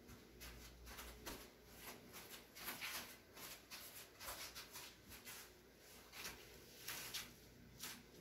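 Near silence: quiet room tone with a dozen or so faint, brief rustles scattered through it, the strongest about three seconds in and again about seven seconds in.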